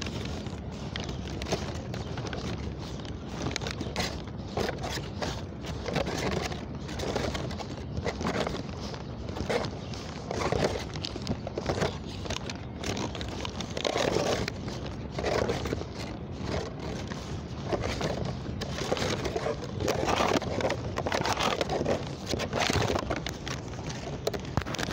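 Handling noise from a phone's microphone rubbing and scraping against clothing: a continuous crackly rustle broken by irregular louder scuffs.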